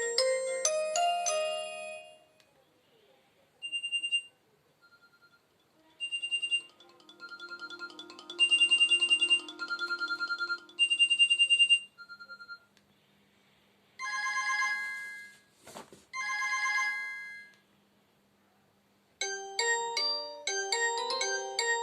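Alcatel One Touch mobile phone playing its built-in ringtones and alert tones through its small speaker. A polyphonic melody ends about two seconds in. Then come several short electronic tone sequences with silent gaps between them and a sharp click in the middle, and another polyphonic melody starts near the end.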